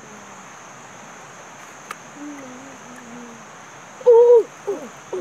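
A boy's short, loud hoot-like vocal 'hoo' about four seconds in, followed by a shorter falling one, over a steady high hiss. A quieter low voice comes just before.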